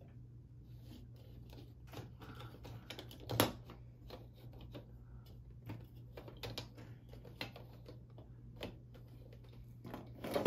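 Irregular hard plastic clicks and taps of LEGO pieces being handled, with one louder click about three and a half seconds in.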